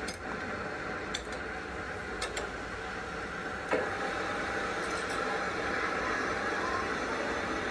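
Metal lathe in a workshop: steady machine running noise with a few light metallic clicks, then a single clunk a little under four seconds in as the chuck holding the gear shaft starts to spin, after which the lathe runs on steadily.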